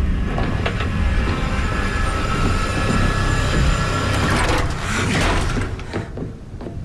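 Heavy mechanical rumbling and grinding with a steady whine, swelling to a louder surge about five seconds in, then dying down.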